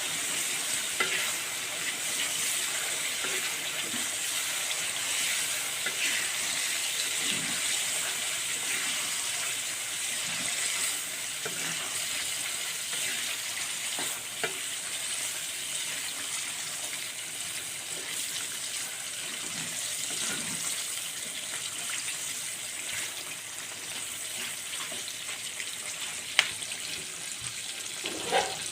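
Food sizzling in hot oil in a pan, with occasional scrapes and taps of a spatula stirring it. Two sharper knocks near the end.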